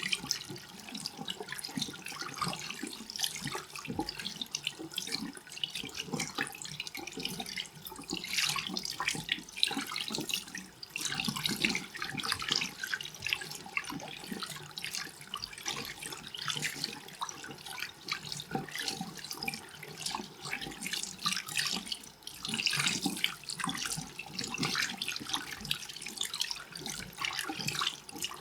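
Water running and splashing, with many small irregular splashes and louder stretches about a third of the way in and again about three quarters through.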